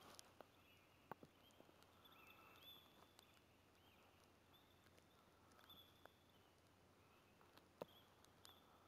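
Near silence: faint outdoor night ambience with scattered soft, high chirps and a few light clicks.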